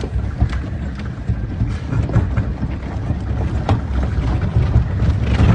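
Cabin noise of a Toyota Hilux pickup driving over rough desert ground: a low rumble of engine and tyres with frequent knocks and rattles, growing louder toward the end.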